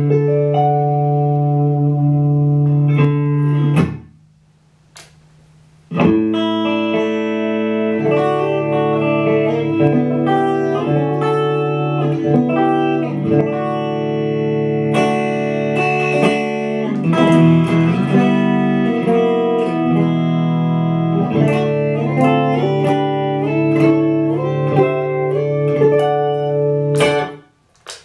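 Fender Stratocaster electric guitar played through a Fender Champion 100 amplifier: sustained chords and single-note lines, the notes ringing on. The sound drops away briefly about four seconds in and again just before the end.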